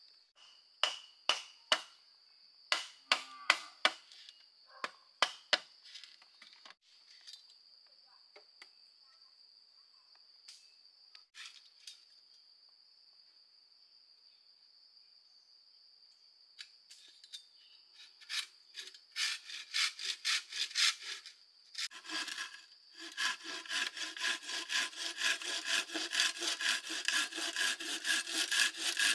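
A hand saw cutting through wood in steady back-and-forth strokes, starting about two-thirds of the way in and running on to the end. Before it come a string of sharp knocks in the first six seconds, and a steady high insect drone is heard behind them.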